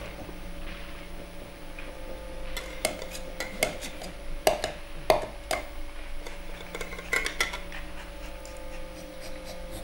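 A spoon clinking and scraping in a metal can: a run of short clinks, most of them between about three and seven and a half seconds in, over a faint steady hum.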